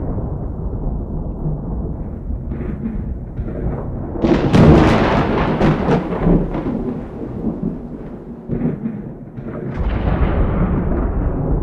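Thunder: a low rolling rumble, broken about four seconds in by a loud sharp clap that crackles several times and rolls away, with another rumble swelling near the end.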